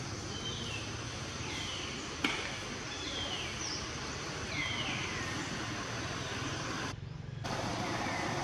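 Outdoor ambience: a steady high-pitched drone with a thin descending chirp repeating about once a second, one sharp click a little over two seconds in, and a brief drop-out near the end.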